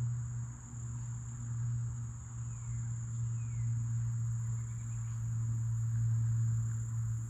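Insects buzzing steadily at one high pitch, over a louder steady low rumble.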